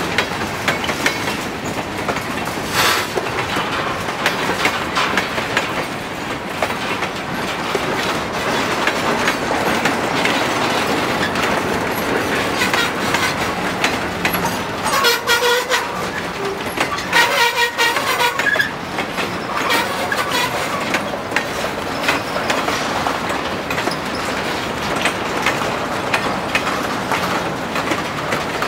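Freight train rolling past at trackside: a steady rumble and clatter of covered hoppers and boxcars on the rails, with wheel clicks over the rail joints. Two brief tones sound a little past halfway through.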